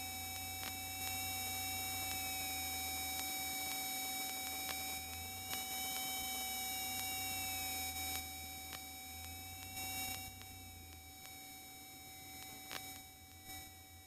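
Steady electrical whine and fixed tones on an aircraft intercom feed, with one tone wavering up and down in pitch. The Extra 200's engine drone sits low and muffled underneath and drops away about eleven seconds in as the plane comes in to land.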